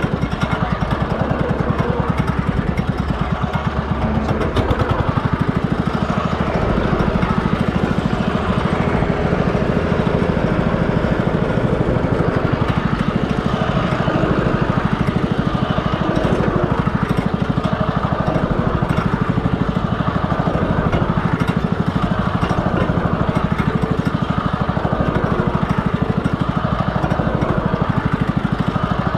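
Small tractor engine running at a steady speed with an even, rapid beat while it drives in circles.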